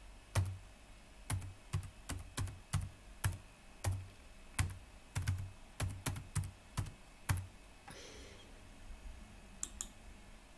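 Keystrokes on a computer keyboard, typing a word in an uneven run of clicks that stops about seven and a half seconds in. Two quick clicks follow near the end.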